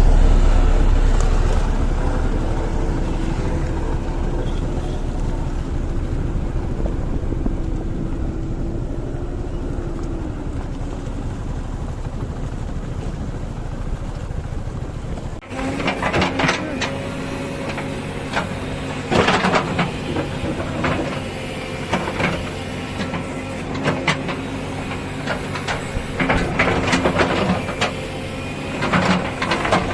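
Diesel engines of heavy construction machinery running steadily. About halfway through the sound cuts to another engine running, with repeated clanks and knocks over it.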